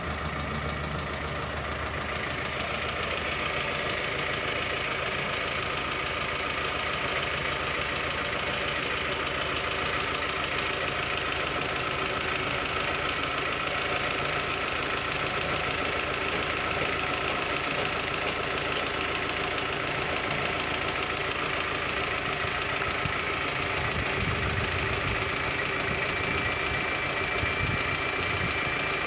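Car engine running steadily with a continuous high-pitched whistle, several thin steady tones above the engine noise. The whistle's cause is unknown to the owner.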